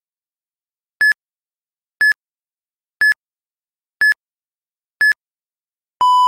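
Interval-training timer counting down: five short, high beeps one second apart, then a longer, lower beep near the end that signals the change to the next interval.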